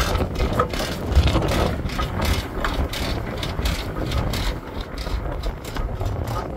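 Steam traction engine running, its gears and motion clanking and rattling in quick, irregular knocks over a low rumble.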